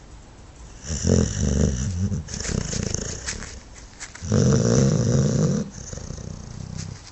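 Dogue de Bordeaux snoring hard in deep sleep: a loud snore about a second in, then a longer, louder one about four seconds in.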